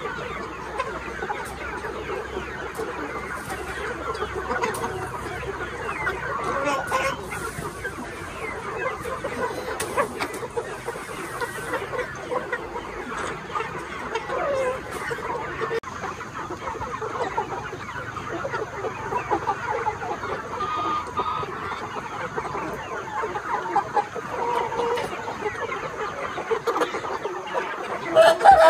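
A flock of young chickens, about three months old, clucking and chirping all at once in a steady, continuous chatter of many overlapping calls.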